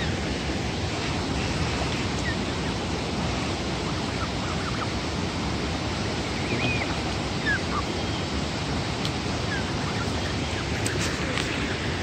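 Steady rushing of a waterfall, with a few faint, short high peeps from Canada goose goslings now and then.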